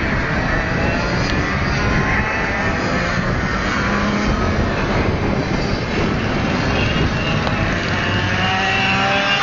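Two-stroke 125cc six-speed race kart engines running hard on the track, their high-revving whine rising and falling in pitch as the karts accelerate and brake through the corners.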